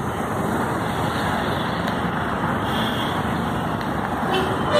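Steady city road traffic noise, with a vehicle horn starting to sound near the end.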